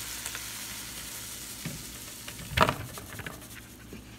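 Freshly cooked shrimp sizzling in a skillet as they are scraped and slid out onto a paper plate. The hiss slowly fades, with a few light clicks and one louder scrape of a utensil against the pan about two-thirds of the way through.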